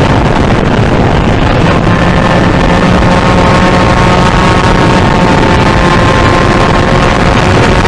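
Suzuki RGV250 two-stroke V-twin motorcycle engine running hard at high revs, its note climbing slowly, with a break about two seconds in like a gear change. Heavy wind noise buffets the onboard microphone.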